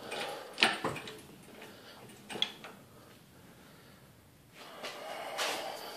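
Metal knocks and clinks from tools working in an engine bay: two clanks about half a second in and a sharp click about two and a half seconds in, then a scraping rustle in the last second and a half.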